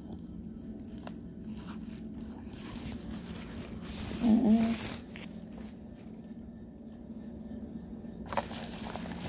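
Soft crunching of raw cornstarch being chewed, with a little handling of the cardboard box, over a steady low hum. A short hummed sound about four seconds in is the loudest moment.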